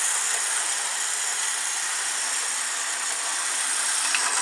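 Tyco HO-scale Burlington Northern diesel model train running on the track: a steady whirring of its small electric motor and wheels on the rails, with a few clicks near the end.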